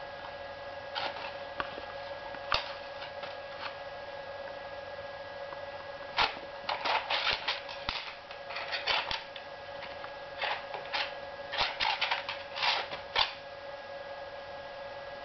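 A chopstick clattering and tapping on a hardwood floor as a kitten bats it about: a few scattered clicks at first, then quick clusters of clicks from about six to thirteen seconds in, over a steady hum.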